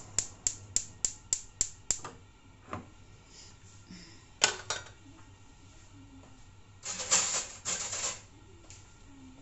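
Hand-held gas lighter wand sparking at a gas hob burner, a rapid run of sharp clicks about five a second that stops about two seconds in as the burner is lit. Later there is a single sharp click about four and a half seconds in, and a brief rustling noise around seven seconds.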